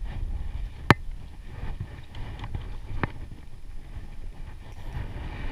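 Low rumble of wind on the microphone in a small open boat, with two sharp clicks about two seconds apart, the first the louder.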